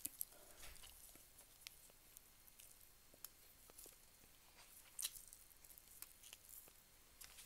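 Faint eating sounds: soft chewing and fingers working rice, with scattered small clicks, one louder about five seconds in.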